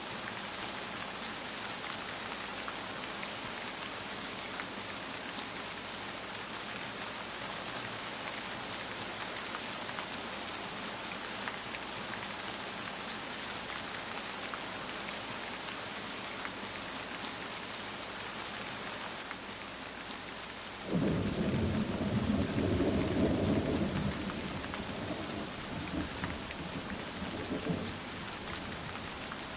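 Steady rain falling, with a low rumble of thunder starting about two-thirds of the way through. The thunder is loudest for a few seconds, then tails off over several more.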